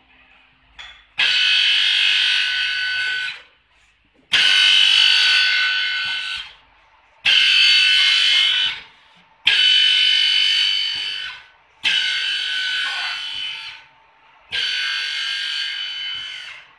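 A two-row multi-spindle drilling machine for wood panels runs through repeated drilling cycles: six bursts of high whine and hiss, each about two to three seconds, starting abruptly and tailing off, with short pauses between.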